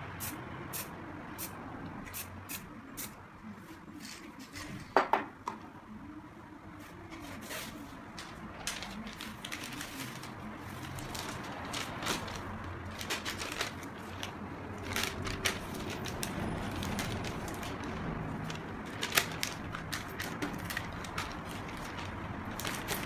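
An aerosol spray-paint can spraying, and paper crinkling and rustling as it is pressed onto the wet paint and lifted off, with many small sharp crackles.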